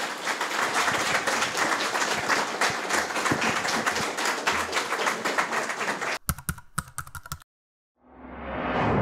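Audience applauding, a dense patter of many hands clapping that cuts off abruptly about six seconds in. A few sharp hits follow, then a whoosh that swells in loudness near the end.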